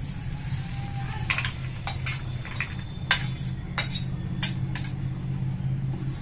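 Metal ladle and slotted spoon scraping and clinking against an iron kadai and a steel bowl as cooked potato filling is scraped out, a string of sharp clinks and scrapes. A steady low hum runs underneath.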